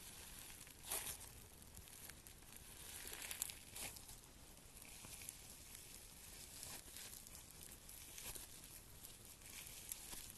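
Slime being squeezed and stretched by hand, giving faint crackling, tearing sounds with a few sharper pops, the loudest about a second in and near four seconds.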